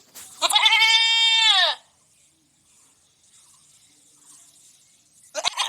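Goat bleating: one long call that drops in pitch as it ends, then a short second bleat beginning near the end.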